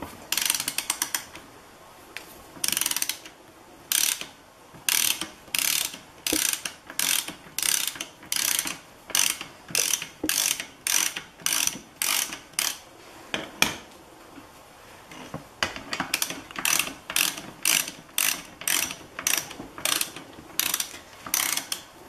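Socket ratchet clicking in short, repeated strokes, about two a second, as the front axle of a 1973 Honda CB750K is unscrewed from its threaded end in the fork leg. There is a pause of about a second and a half in the middle, then the strokes resume.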